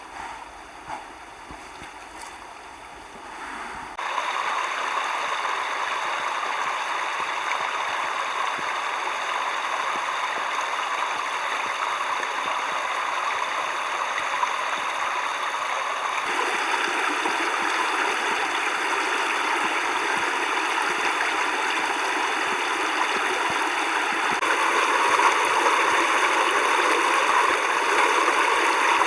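A mountain stream flowing steadily with a rushing noise. It comes in suddenly about four seconds in, after quieter outdoor sound with a few light knocks, and its tone shifts abruptly twice.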